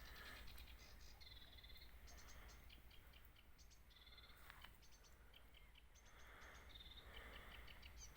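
Faint birdsong: quick runs of high chirps and trills, with a few short held whistled notes, over a steady low rumble.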